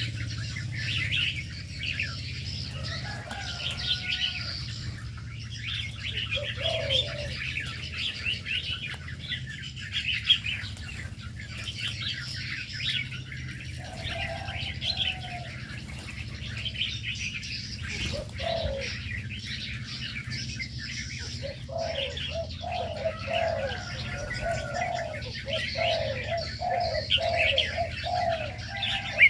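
Many small aviary birds chirping and twittering nonstop, with doves cooing now and then and in a quick run of calls near the end.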